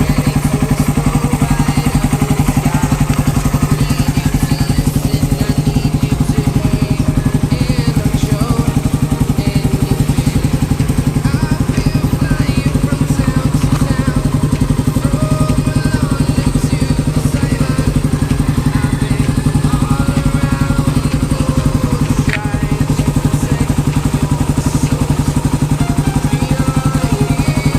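Suzuki Raider 150's single-cylinder engine idling steadily while warming up, running through a big-elbow exhaust with the catalytic canister removed.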